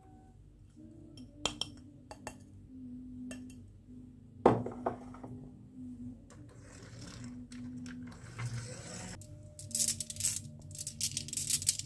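Scattered clicks and clinks of small hard objects, with one sharp knock about four and a half seconds in and a dense rattling clatter near the end.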